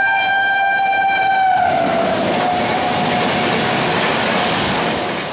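A passing train's horn sounding one long blast that dips slightly in pitch and fades about two seconds in, over the steady rush of the train running past at speed.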